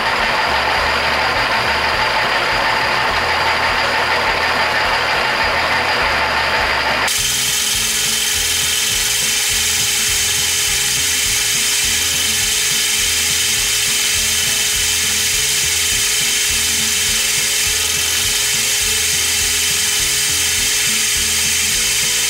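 A drill press running with a small twist drill cutting into a metal block: a loud, steady motor and cutting sound. About seven seconds in it changes to a thinner, higher hiss with a steady tone.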